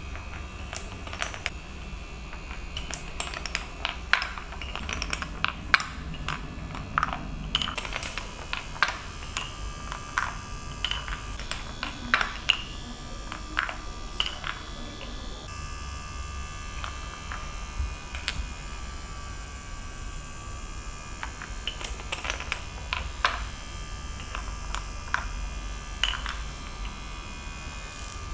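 Marbles rolling through the grooves and tunnels of a Cuboro wooden marble run, clicking and clacking irregularly as they drop and knock against the wooden blocks, some knocks ringing briefly. There are fewer clicks about halfway through, and they pick up again after that.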